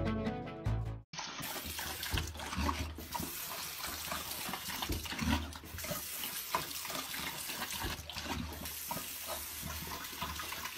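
Tap water running from a bathroom faucet into a sink while a dog laps at the stream, with small irregular splashes. Background music ends about a second in.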